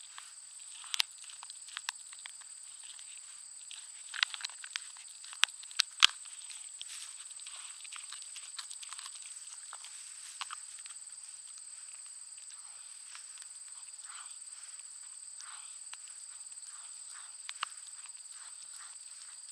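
A Schnauzer–pug mix dog chewing a bone: sharp cracks and crunches, several loud ones in the first six seconds, then softer, scattered gnawing clicks. A steady high-pitched whine sits under it.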